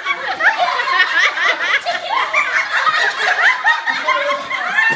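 A group of women laughing together, many high-pitched voices overlapping in continuous, excited laughter.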